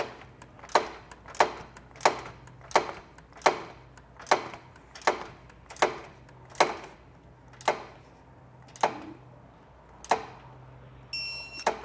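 Torque wrench ratcheting on a bolt, giving a sharp click about every 0.7 s as the handle is worked back and forth while tightening the hardware. An electronic beep sounds near the end.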